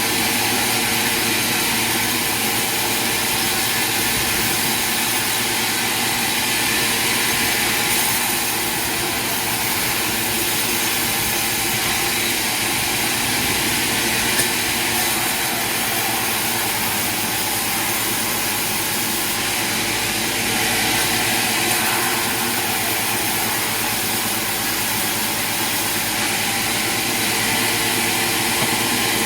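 Sawmill machinery running steadily: a constant mechanical drone with a strong hiss and no pauses.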